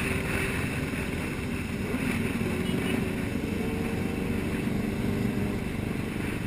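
Steady engine and road noise of a moving vehicle, with no crash or impact.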